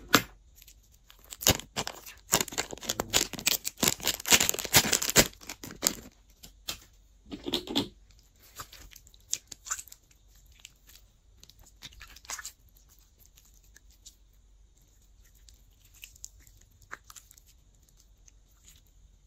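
Blue glossy slime squeezed out of a plastic piping bag and worked by hand: dense wet crackling and squelching for several seconds, a shorter burst about seven seconds in, then scattered faint sticky pops.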